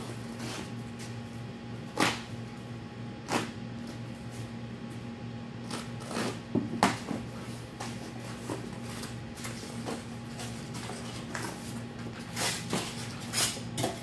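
A cardboard shipping box being cut open and unpacked by hand: scattered sharp knocks, scrapes and rustles of tape, flaps and packing, the loudest about two seconds and seven seconds in, over a steady low hum.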